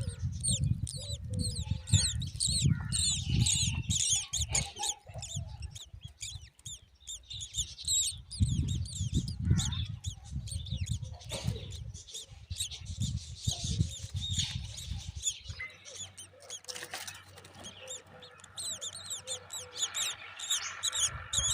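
Myna chicks chirping: a dense run of rapid, high-pitched chirps repeated over and over. A low rumble runs beneath them until about two-thirds of the way through.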